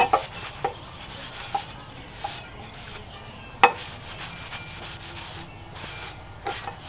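A cloth rubbing along a steel cleaver blade as it is wiped clean, with a few sharp clicks, the loudest about halfway through.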